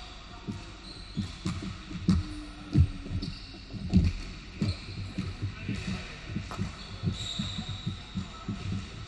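Basketball bouncing on a hardwood gym floor, low thumps two or three a second, the loudest about four seconds in, with a few short sneaker squeaks near the end.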